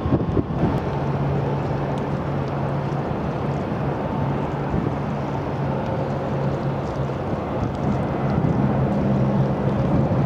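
Distant jet airliner engines running at taxi power: a steady low hum with a few held tones, under wind noise on the microphone.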